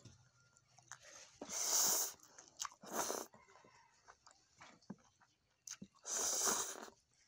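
Close-miked eating sounds: three loud slurps, about a second and a half in, around three seconds in, and near the end, the last drawing thin rice vermicelli noodles into the mouth, with small wet chewing clicks between.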